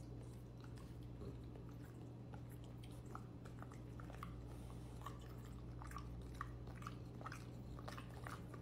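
A French bulldog chewing: faint, irregular wet clicks and smacks, growing more frequent towards the end, over a low steady hum.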